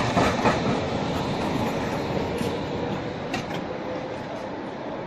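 ČKD KT4YU tram running on its rails, its wheels clacking over the track several times in the first half second and a couple more times later, over a steady rumble that slowly gets quieter.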